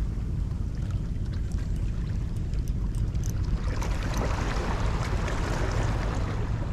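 Wind buffeting the microphone with a steady low rumble, and a rushing wash of sea water swelling about three and a half seconds in and easing near the end.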